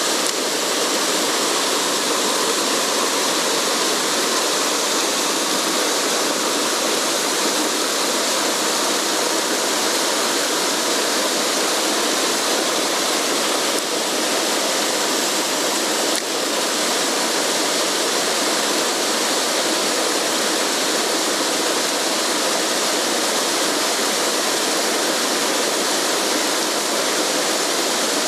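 Mountain stream water rushing steadily, a constant even noise.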